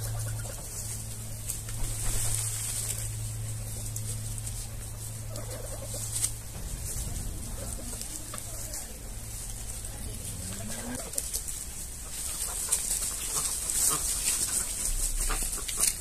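Domestic geese giving short, soft calls while they forage, one call rising in pitch about two-thirds of the way through, with light ticking and rustling in dry leaves. A steady low hum runs under the first two-thirds and then stops.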